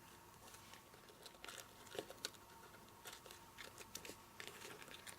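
Faint, scattered clicks and crinkles of paper and card being handled and pressed down by hand.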